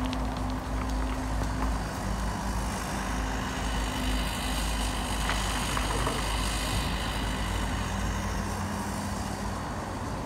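Compact crawler excavator's diesel engine running steadily while the machine swings and dumps its bucket, with a higher whine swelling and fading in the middle.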